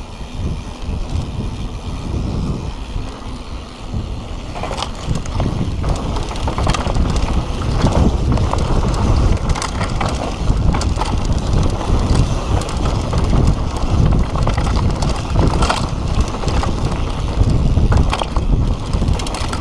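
Mountain bike riding fast down a dirt singletrack: wind on the microphone and tyre rumble, with frequent clatters and rattles from the bike over bumps. Louder from about four seconds in.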